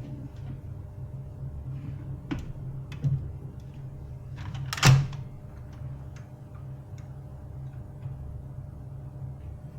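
Laser printer running with a steady low mechanical hum, broken by a few clicks and one sharp knock about five seconds in.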